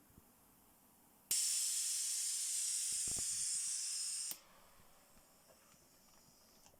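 Compressed air hissing through the pneumatic valve of a low-cost ventilator prototype under pressure test. It starts abruptly about a second in, holds steady for about three seconds, then cuts off sharply as the valve shuts.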